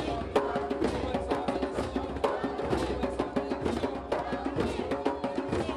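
Several djembes played with bare hands in a group, a dense, uneven run of slaps and tones several strikes a second.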